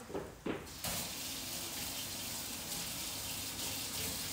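Kitchen tap running into a sink while a knife is rinsed under it: a steady rush of water that starts about a second in.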